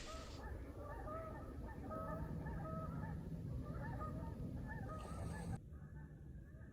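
A flock of geese honking loudly, many short calls overlapping. The honking drops off suddenly about five and a half seconds in and carries on faintly.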